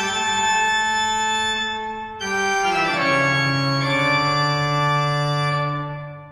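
Title music: sustained keyboard chords with an organ sound, shifting to a lower chord a little under three seconds in and fading out near the end.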